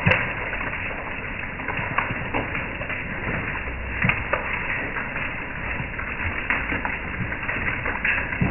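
Hail and rain pelting a wooden deck: a dense, steady patter of small impacts with sharper single hits standing out, the loudest just after the start and again about four seconds in.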